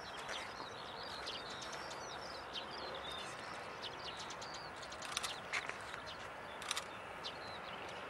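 Small songbirds chirping and twittering over a steady background hiss of distant noise, with two sharp ticks a little past the middle.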